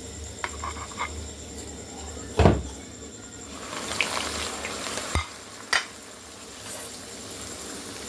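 Slices of bread frying in hot oil, sizzling steadily, the sizzle swelling a little midway. A few sharp knocks of a utensil against the pan, and a loud dull thump about two and a half seconds in.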